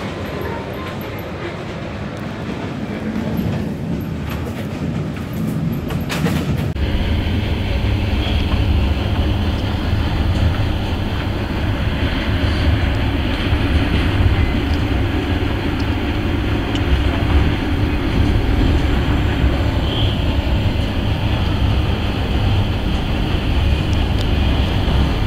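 Steady rumble of a train carriage in motion, heard from inside. It changes abruptly about seven seconds in and becomes louder and deeper for the rest of the stretch.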